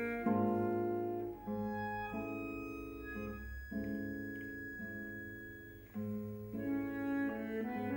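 Bandoneon playing slow, held chords that change every second or two.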